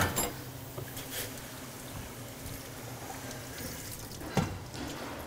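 Kitchen faucet running quietly into a stainless steel sink, with a few light knocks of a metal pot against the sink.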